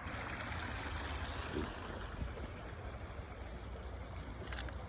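Creek water running steadily over a low rumble, with a few faint clicks near the end.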